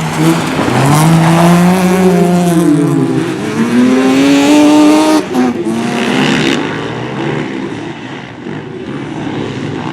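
Race car engine at high revs: its pitch sinks, then climbs hard as it accelerates. It cuts off sharply about five seconds in, leaving a quieter mix of engine and tyre noise.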